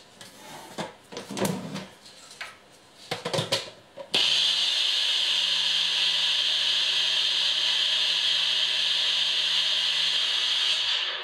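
Small personal blender grinding dry oat flakes into oat flour. A few knocks and clicks come as the cup is fitted onto the base, then the motor starts abruptly about four seconds in, runs steadily for about seven seconds, and stops.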